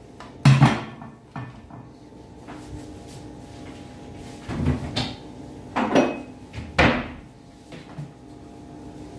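Knocks and clunks of kitchen things being handled: an electric hand mixer set down in a stainless steel sink about half a second in, then several separate knocks of items and containers being moved around five, six and seven seconds in, over a faint steady hum.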